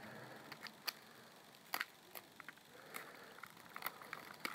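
Faint, scattered clicks and taps of hands handling objects close to the microphone, about half a dozen over a few seconds.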